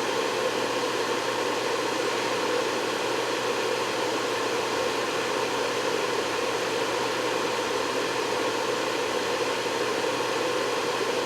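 Steady fan-like whooshing noise with a faint hum, holding level throughout.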